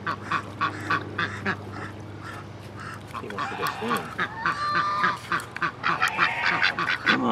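Ducks quacking: a run of short quacks, several a second, with some longer, lower calls in the middle.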